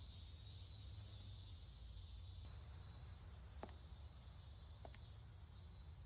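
Faint ambience of chirring insects, pulsing in short repeated trills over a low hum, with two soft clicks midway.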